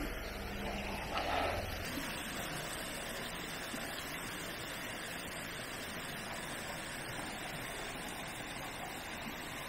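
Steady rushing of a mountain stream, with a low rumble underneath that stops about two seconds in and a short louder noise about a second in.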